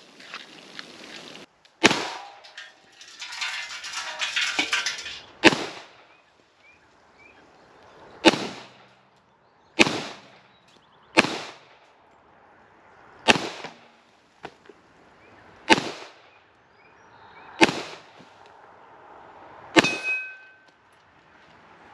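Glock 21 pistol firing .45 ACP rounds, nine single shots at an unhurried, uneven pace of about one every two seconds. The last shot is followed by a short metallic ring.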